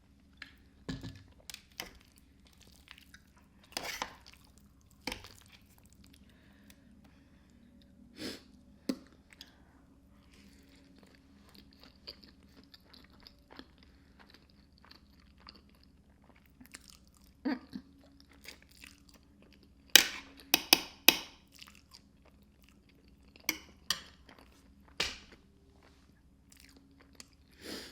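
Close-up chewing of creamy fettuccine alfredo mixed with crushed hot Cheetos, with scattered crisp crunches from the Cheeto crumbs. The loudest run of crunches comes about two-thirds of the way through.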